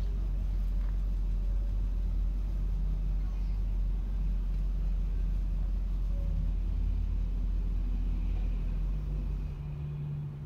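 1973 Mercury Comet's engine running as the car is moved off from beside the wall, a steady low rumble that drops away near the end.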